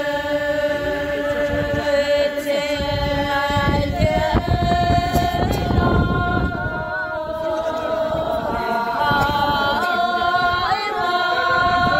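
A group of mostly women's voices singing together in unison, holding long, drawn-out notes; the pitch steps up about four seconds in and shifts again near the end.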